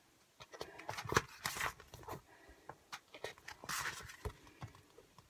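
Sheets of stickers being handled and leafed through: scattered paper rustles and light taps, with a few louder brief swishes.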